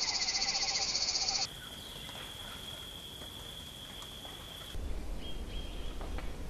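A loud animal chorus of rapid pulsing trills, which cuts off abruptly about a second and a half in. A faint, steady, high-pitched whine follows, and after about five seconds a low rumble with a few scattered light clicks.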